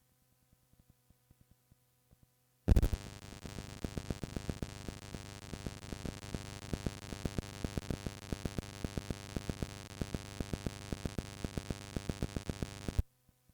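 Cassette tape playback noise: a loud pop nearly three seconds in, then steady hiss and hum full of rapid crackling clicks, which cuts off suddenly about ten seconds later.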